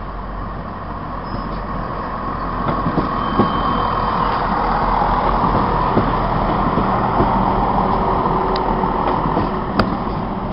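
Class 170 Turbostar diesel multiple unit's underfloor diesel engines running at the platform. The rumble swells over the first few seconds, holds, then eases toward the end, with a couple of short clicks near the end.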